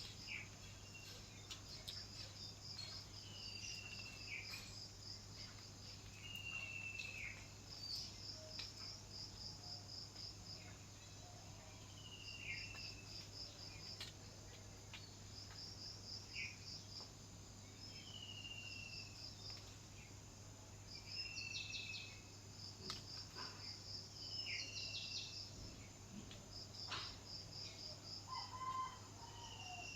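Birds and insects chirping: high pulsed trills come and go every few seconds, a short falling whistle recurs about every three seconds, and a steady high-pitched drone runs underneath.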